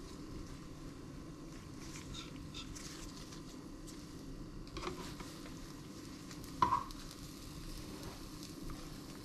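Spinach-and-egg omelette sizzling in a nonstick frying pan while cheese slices are laid on it and a spatula folds it over, with a few light scrapes and clicks. One short, sharp sound about two-thirds of the way through is the loudest moment.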